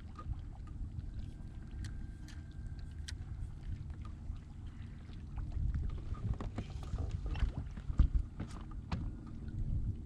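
Low rumble of water and wind around a fishing kayak, with scattered light clicks and knocks of gear against the boat; the sharpest knock comes about eight seconds in.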